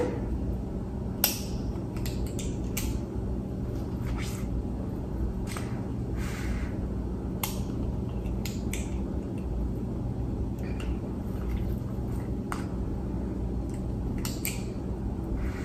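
Scattered soft clicks and squishes of a metal squeeze-handle scoop dishing mashed potatoes onto waffles, over a steady low hum.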